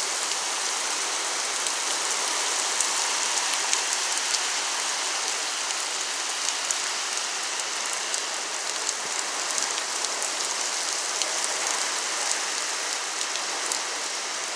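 Heavy rain pouring steadily, with scattered individual drops ticking on a surface close by.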